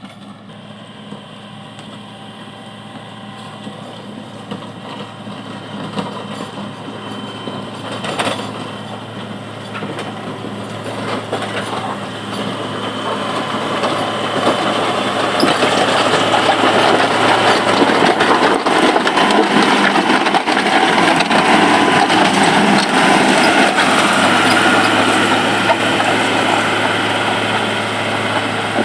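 Komatsu GD511A motor grader's diesel engine running, growing steadily louder until about two-thirds through, then easing a little. A single sharp knock sounds about eight seconds in.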